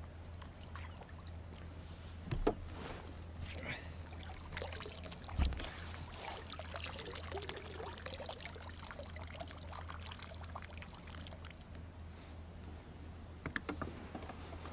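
Water splashing and dripping as a large squid is scooped into a landing net and lifted out of the sea onto a kayak, with two sharp thumps about two and a half and five and a half seconds in, and a few clicks near the end.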